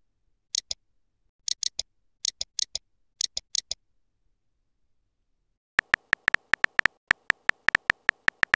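Smartphone keyboard tap sounds from text being typed. There are a few soft clicks in twos and threes during the first four seconds, then a brief pause, then a fast run of sharper taps from about six seconds in.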